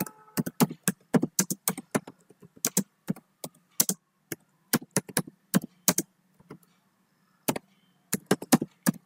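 Typing on a computer keyboard: a run of uneven keystrokes, about three a second, with a pause of about a second about two-thirds of the way through.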